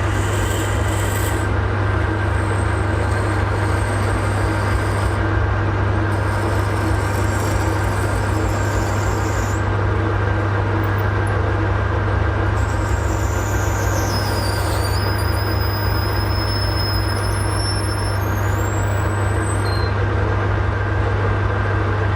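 Metal lathe running steadily while turning brass, a constant motor hum with thin high-pitched whines from the cutting coming and going about midway.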